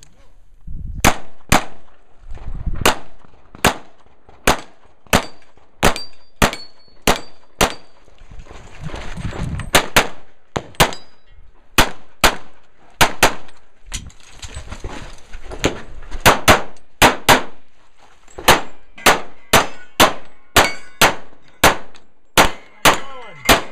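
Rapid handgun fire in a practical shooting stage: about forty shots, mostly in quick pairs, with brief lulls near 8 and 14 seconds while the shooter moves to new positions, and metallic clangs from hits on steel targets.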